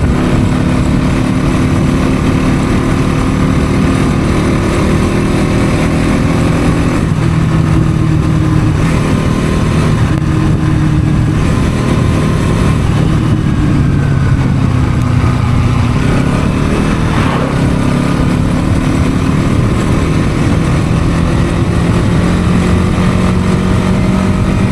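Motorcycle engine running under way, loud and steady, its note shifting up and down several times.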